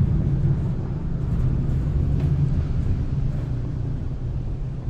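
Steady low engine rumble with an even, unchanging hum.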